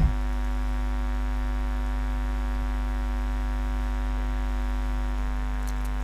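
Steady electrical mains hum: a low drone with fainter steady tones stacked above it, unchanging.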